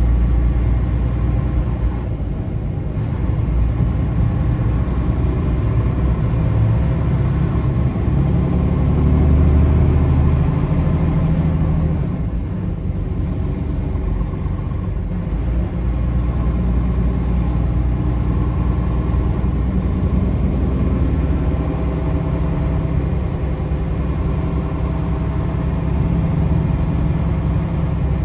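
Car driving: steady low engine and road rumble, swelling briefly a little past the middle.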